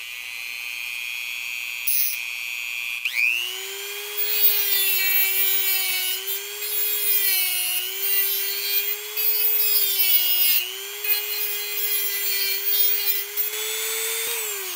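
Dremel rotary tool with a small cut-off wheel: the motor whines, then from about three seconds in the wheel grinds into the metal plate to deepen a slot, its pitch sagging briefly a few times as the wheel bites. It spins down right at the end.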